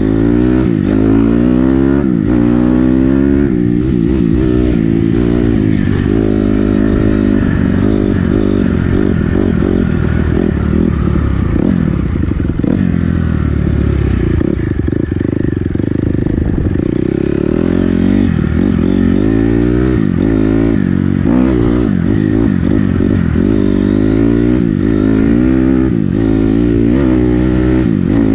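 Engine of a small vehicle being ridden, revving up and falling back over and over as the rider accelerates and eases off, held high for a few seconds midway.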